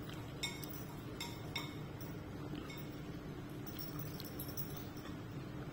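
A Labrador eating from a ceramic bowl, its mouth knocking against the bowl: a few sharp clinks in the first two seconds, then lighter, scattered ticks.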